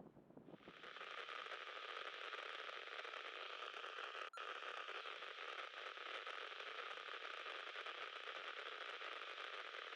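Marine VHF radio receiver hissing with static as a carrier opens the squelch, a steady narrow-band radio hiss with a brief dropout near the middle, ahead of a voice transmission.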